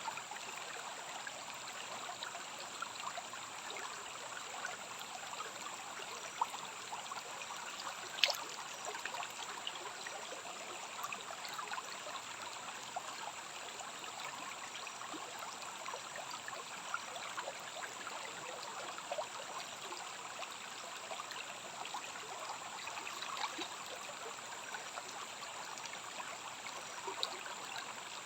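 Small rainforest stream running and trickling steadily, with many small splashes and drips in it and one sharper click about eight seconds in.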